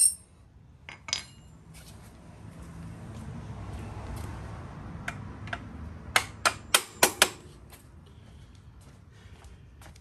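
Sharp metallic clinks and taps: a few single ones, then a quick run of five a little past the middle, over a low rumble that swells and fades.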